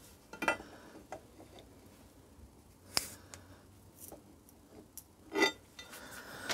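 Sparse clicks and knocks of a pry tool working the stuck cylinder barrel of a Suzuki K10P engine loose: one about half a second in, a sharp click at three seconds and a heavier knock about five and a half seconds in, with faint ticks between.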